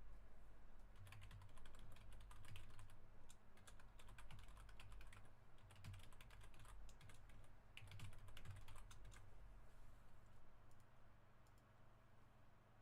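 Typing on a computer keyboard: faint, irregular runs of keystrokes that thin out and stop about nine seconds in, over a low steady electrical hum.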